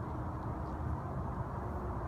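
Steady low rumble of outdoor background noise, with no clear distinct event.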